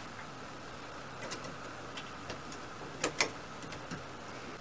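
Light clicks and ticks of the guard strips being snapped onto the galvanized wire-mesh rabbit cage door, with two sharper clicks about three seconds in, over a faint steady hum.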